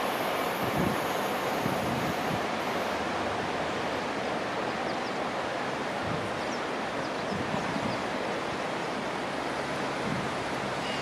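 Steady noise of surf and wind, with wind buffeting the microphone. The last of a departing train fades out in the first few seconds.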